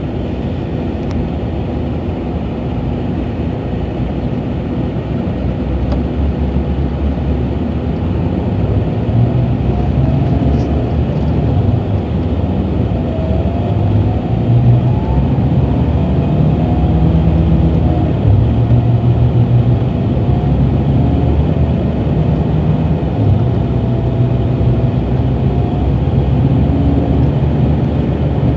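Scania DC12 inline-six diesel (380 hp) of a rear-engined Scania K380 coach, heard from inside the cabin while under way. It pulls and grows louder over the first half, its note rising and dropping, with a faint higher whine wavering above it in the middle.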